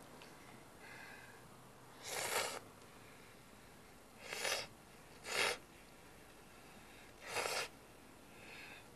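Ramen noodles slurped with chopsticks from a bowl: four short slurps, two of them about a second apart.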